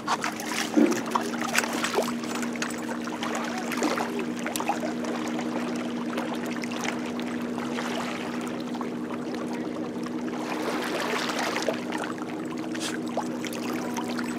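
Steady motor hum, with water lapping and trickling against shoreline rocks and a few sharp knocks in the first couple of seconds.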